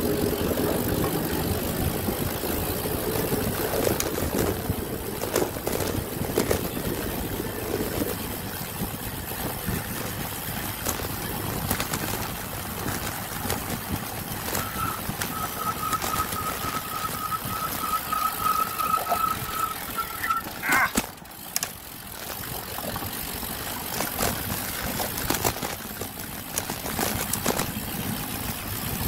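Wind buffeting the microphone and the tyre and drivetrain noise of a road bike rolling downhill. About halfway through, a steady high-pitched squeal holds for some six seconds and ends in a sharp clack.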